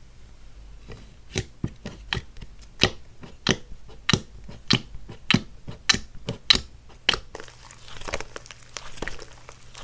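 Slime being pressed and folded by hand, giving a run of sharp popping clicks about every half second, which give way about seven seconds in to softer, denser crackling and squishing.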